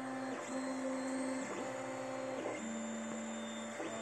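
SUNLU S8 3D printer printing, its stepper motors whining in steady tones that jump to a new pitch every second or so as the print head changes moves.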